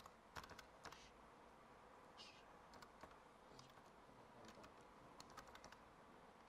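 Faint typing on a computer keyboard: scattered, irregular keystrokes as a short name is entered.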